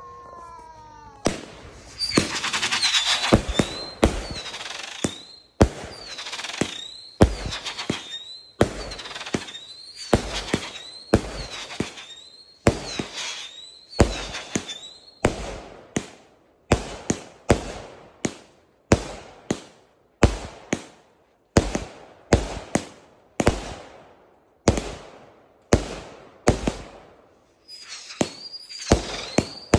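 A 100-shot firework cake firing shot after shot, a sharp bang about once a second. High whistles that waver up and down in pitch ride over the shots in the first half and come back near the end.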